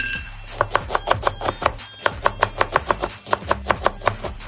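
Kitchen knife chopping through orange slices onto a cutting board: quick runs of even chops, about six a second, with brief pauses between runs.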